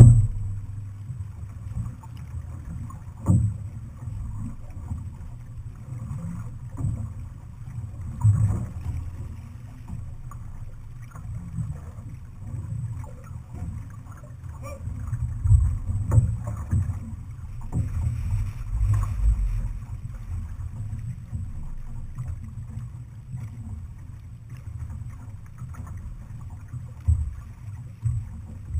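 Outrigger canoe being paddled: water washes along the hull under a gusty low wind rumble on the hull-mounted camera's microphone. A few sharp knocks come through, at about three, eight and sixteen seconds in.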